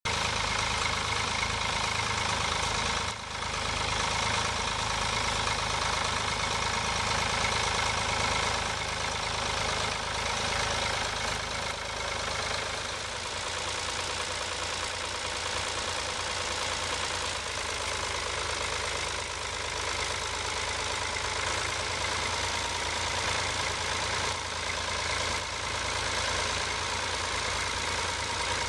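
Ford tractor engine running steadily while pulling a plough.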